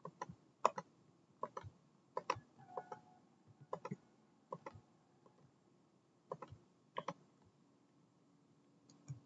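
Faint computer mouse clicks: about a dozen short, sharp clicks at uneven intervals, some coming in quick pairs.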